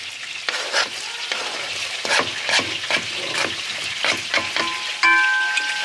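Chopped onion, minced garlic and lemon zest scraped off a white cutting board with a wooden spatula into hot butter and olive oil, sizzling in the pan, with a series of sharp scrapes and knocks from the spatula on the board. A steady high tone comes in about five seconds in and holds.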